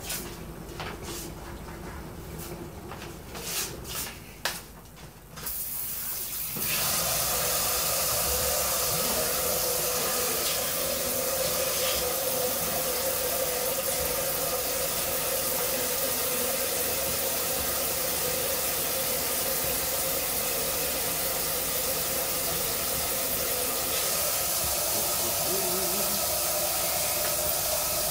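A few knocks and clicks of handling, then from about six seconds in a tap runs steadily, water pouring into a plastic homebrew bucket to bring the mead must up to volume.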